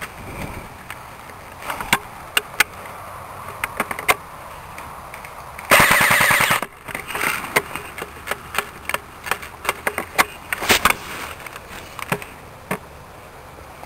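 ICS M4 airsoft electric gun (AEG) firing one short full-auto burst of about a second, a fast even rattle of shots, about six seconds in. Scattered single sharp clicks and snaps come before and after it.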